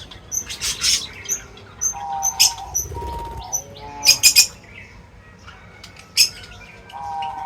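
Several birds chirping in short, sharp calls, with a few held, lower notes in between.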